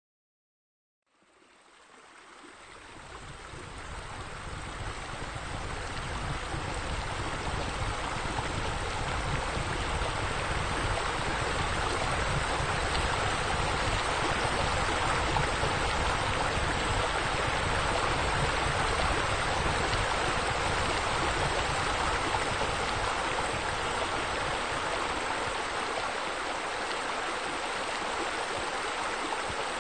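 Steady running water, like a stream or fountain flowing. It fades in from silence over the first several seconds, then holds steady.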